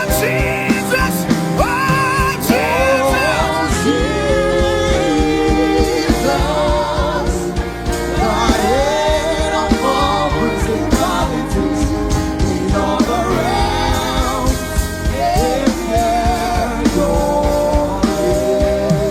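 Worship music: a solo voice sings long, sliding notes with no clear words over a full band with a steady beat.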